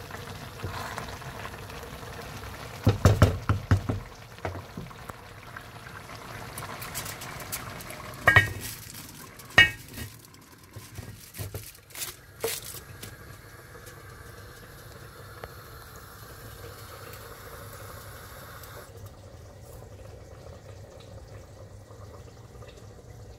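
A spoon stirring wet rice pilau in a pan, knocking against the pan several times about three seconds in. Sharp metal clinks follow, as the foil-sealed pot is covered with its lid, and then a steady low hiss.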